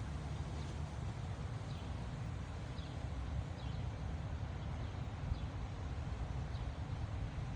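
Strong wind buffeting the microphone as a steady low rumble, with a bird's faint short chirps repeating about once a second above it.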